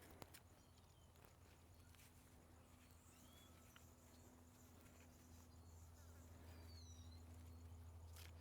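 Near silence: a steady low hum with a few faint, short bird chirps and a single small click about a quarter second in.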